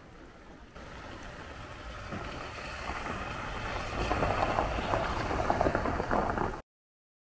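Rain and wind noise, growing steadily louder and then cutting off abruptly about six and a half seconds in.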